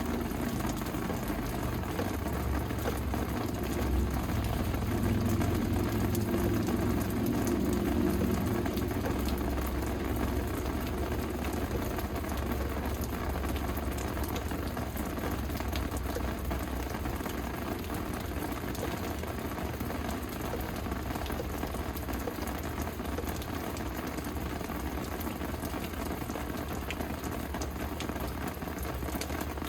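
Steady rain falling and pattering, an even hiss throughout. A low rumble swells and fades between about three and ten seconds in.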